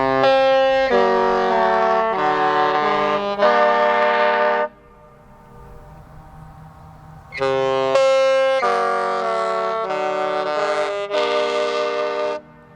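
Disney Treasure's musical ship horn sounding a four-note tune of chords, each held about a second, played twice with a pause of a few seconds between.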